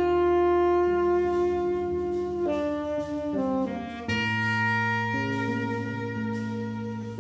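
Tenor saxophone playing a slow jazz ballad melody in long held notes, over a sustained electric bass line.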